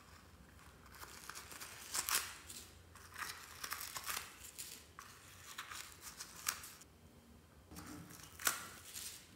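Crinkling, rustling handling noise in several short, irregular bursts as small purple foam flower decorations are pulled out of a soft rubber bunny toy.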